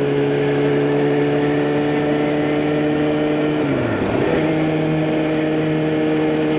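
2009 Kawasaki ZX-6R inline-four running through a Hotbodies Growler slip-on exhaust at a steady cruising note. About four seconds in, the note dips briefly and comes straight back to the same pitch.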